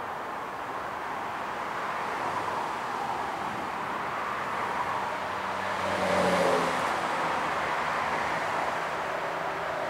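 Jet airliner passing by, its engine noise swelling to a peak about six seconds in, where a whine drops in pitch, then easing off.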